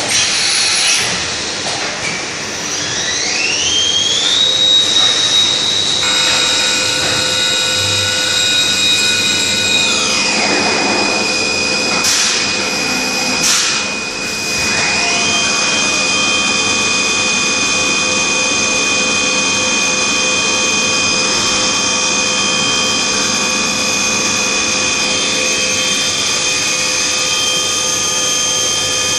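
Spindle of a Leadwell V-50L CNC vertical machining centre spinning up with a rising high whine, running steady while milling, and winding down about ten seconds in. After two sharp clicks it spins up again and runs steady, starting to wind down right at the end.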